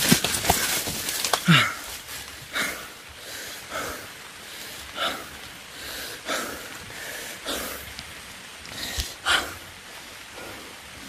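Dry corn leaves rustling and crackling against the body and camera as a person pushes through a cornfield, loudest in the first second and a half. After that, soft, regular breaths about every second and a quarter.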